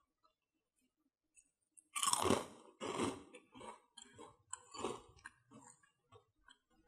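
Crisp, sugar-topped butter toast rusks being chewed with the mouth closed: near silence at first, then a run of sharp crunches starting about two seconds in, the first one the loudest.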